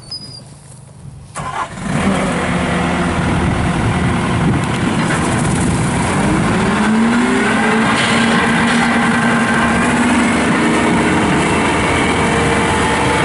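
Bobcat S650 skid steer's diesel engine starting about two seconds in, after a few clicks, then running loud and steady. Its pitch rises around the middle as the revs come up.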